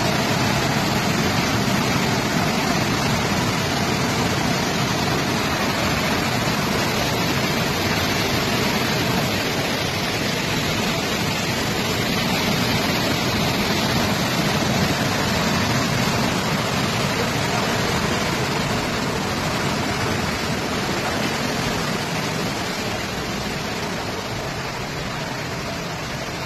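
Torrent of floodwater rushing down a street, a loud, steady wash of water noise.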